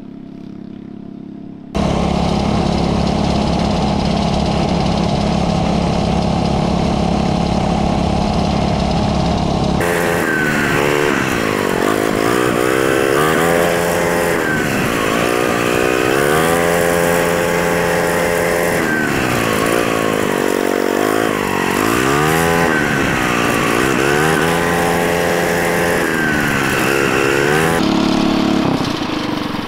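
A mini bike's Tillotson 212cc single-cylinder four-stroke engine running hard. It comes in abruptly about two seconds in and holds a steady high pitch for several seconds, then rises and falls again and again as the throttle is opened and closed around the course.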